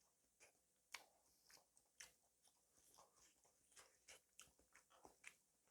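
A person chewing and biting food close to the microphone: faint, irregular wet mouth clicks and small crunches.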